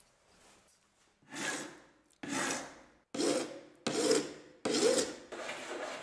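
Flat hand file rasping across the wooden handle scales of a knife, shaping the wood. About a second in, five strokes begin, roughly one a second, each starting sharply and fading off.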